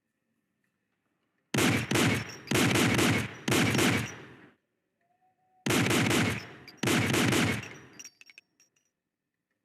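M1911 pistol firing: a rapid string of shots about a second and a half in, a short pause, then a second string. A few light, high-pitched clinks come near the end.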